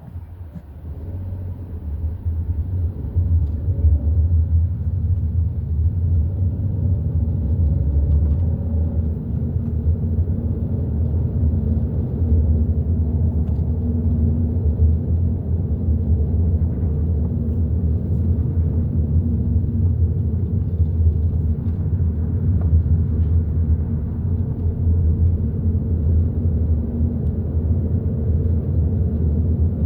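Hyundai i30 N Line on the move: a steady low rumble of engine and road noise. It swells over the first three seconds, then holds even.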